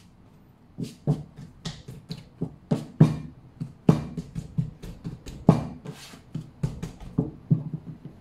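Wholemeal bread dough being pressed, patted and folded by hand on a silicone baking mat: an irregular run of soft thumps and slaps, several a second, starting about a second in.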